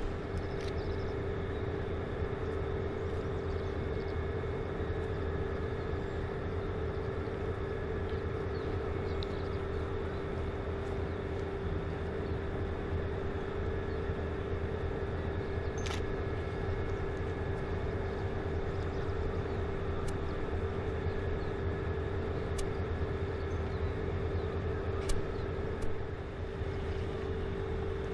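Lake freighter Kaye E. Barker's engines running as it passes: a steady low drone with a constant hum tone and fainter higher tones, and a few faint clicks.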